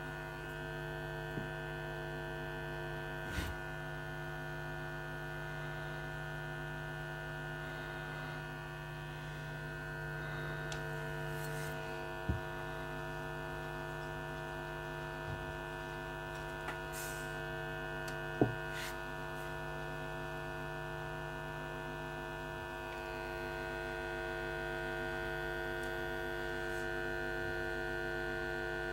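Paradigm Atom woofer driven with a steady low test tone from an oscillator and amplifier, heard as a constant buzzing hum with overtones. The tone keeps the cone moving so it stays centred while the glue on the new foam surround sets. A few light clicks come through as the edge is pressed down.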